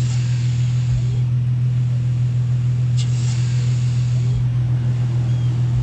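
Infiniti G35's VQ-series V6 idling steadily, fitted with a new JWT Pop Charge aftermarket intake. A short hiss recurs about every three seconds over the steady engine hum.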